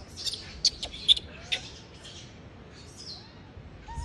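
Newborn macaque infant giving short, shrill distress squeals while being handled by its mother. The squeals come thick in the first second and a half, the loudest about a second in, then thin to a few fainter calls.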